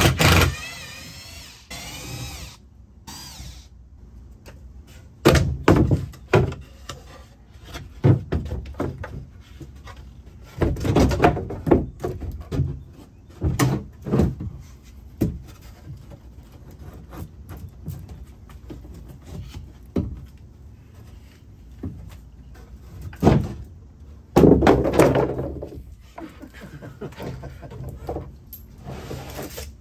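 A cordless drill-driver whines for about two seconds at the start as screws are backed out. It is followed by a string of irregular wooden knocks and thunks as the plywood building stations are worked loose from the strongback and laid down, with another longer burst of noise near the end.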